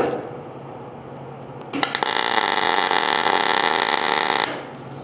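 A sharp click, then an arc welder laying a tack weld on a hood hinge bracket: a steady crackling buzz starting about two seconds in and cutting off sharply after about two and a half seconds.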